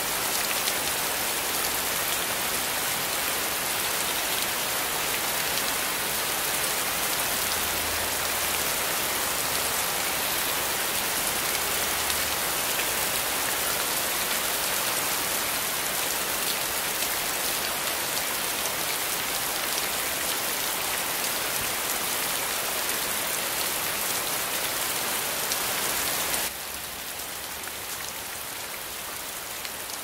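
Steady, even hiss of falling water. It drops suddenly to a quieter, duller hiss near the end.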